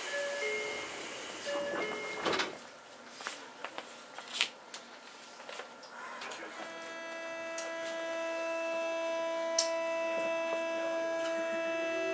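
Tokyo Metro 8000-series train leaving a station: a short electronic chime sounds twice, a rush of noise and clicks follow as the doors close, then about six seconds in the Mitsubishi thyristor armature chopper under the floor starts up with a steady high whine and several overtones as the train pulls away. Near the end a faint rising tone from the traction motors comes in.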